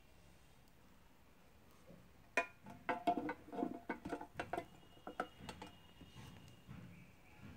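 A quick run of sharp clicks and knocks, loudest between about two and a half and five seconds in, then a few fainter ticks: a cylindrical LG M26 18650 cell being handled and pushed into the clamp of a battery internal-resistance tester.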